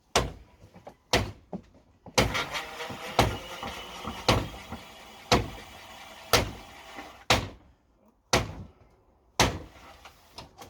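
Hammer blows struck steadily, about one a second, each a sharp knock; from about two seconds in to about seven seconds in, the struck material rings between blows.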